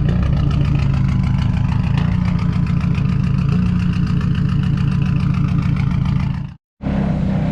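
Turbocharged KA24DE inline-four of a Nissan 240SX running at a steady idle with a misfire, which the owner puts down to a dirty injector. The sound cuts out for a moment near the end.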